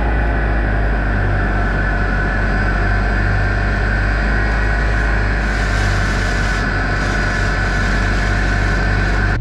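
Steady mechanical hum from the farm's water system, with water rushing through the PVC lines as the ball valves are opened to restore water after a line repair. A brief hiss rises about five and a half seconds in.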